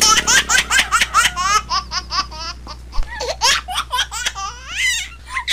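A woman laughing in a long run of quick, high-pitched bursts that slows and fades near the end.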